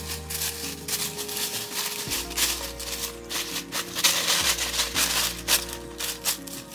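Dry leaves crunching and crackling as they are scattered and trodden on, over background music with sustained notes and a bass line.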